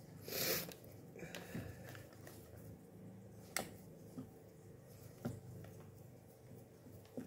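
Pie dough being pressed and molded by hand into a metal pie pan: faint soft handling sounds with a few light clicks against the tin, the sharpest about three and a half seconds in. A short breath through the nose near the start is the loudest sound, over a faint steady hum.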